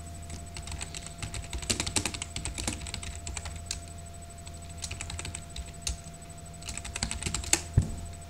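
Typing on a computer keyboard: three quick runs of keystrokes with short pauses between them, over a steady background hum.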